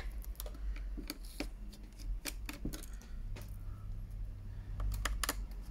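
Irregular small clicks and taps of hands handling a laptop's plastic bottom panel and its tiny screws at the battery bay, over a steady low hum.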